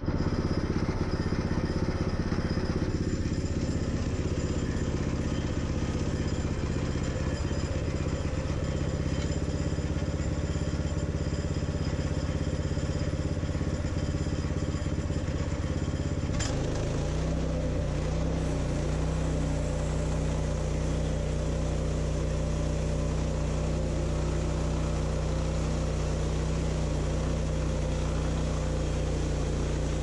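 Portable bandsaw sawmill's engine running steadily under load as the band blade cuts along a frozen ash log. About halfway through, the engine note shifts to a new steady pitch.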